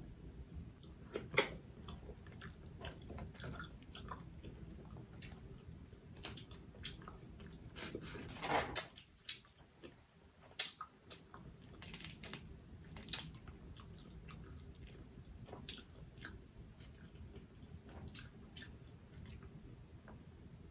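Close-miked eating of boiled crawfish: chewing and mouth sounds with scattered small cracks and snaps as the shells are peeled by hand. A longer, louder burst comes about eight seconds in, and a few sharp cracks stand out, about a second in and around ten and thirteen seconds.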